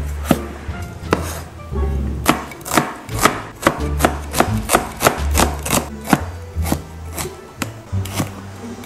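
A broad-bladed kitchen knife chops potato, red onion and carrot on a plastic cutting board, making a steady run of sharp knocks, about three a second, over background music.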